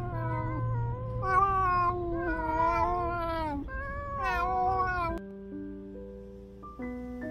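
A tabby stray cat grumbling with several long, drawn-out meows that bend up and down in pitch, the cat showing its temper. About five seconds in the calls stop abruptly and gentle piano music takes over.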